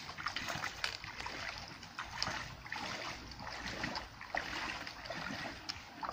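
People wading through a shallow river in rubber chest waders, their strides sloshing and splashing through the water in an uneven rhythm, several splashes a second.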